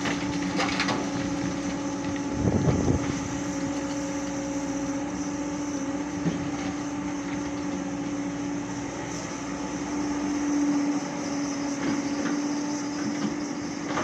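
Hyundai 140 excavator's diesel engine running steadily, with a brief louder low rumble about two and a half seconds in.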